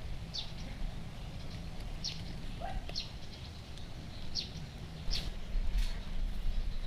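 Bird chirping: short high chirps that drop in pitch, about six of them a second or so apart, over a steady low rumble.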